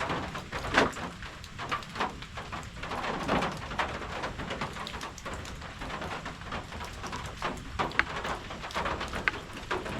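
Steady rain falling, with many irregular sharp taps of drops landing close by.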